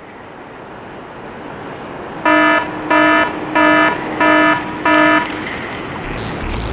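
Electronic buzzer sound effect: five short, evenly spaced buzzes about two-thirds of a second apart, starting a little over two seconds in, over a steadily rising swell of noise.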